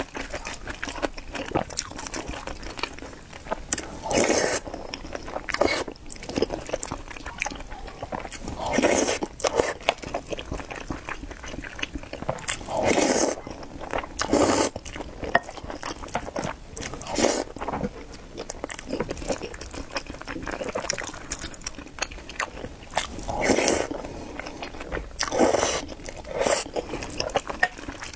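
Close-up eating sounds: noodles slurped in short loud bursts about eight times, with wet chewing between them.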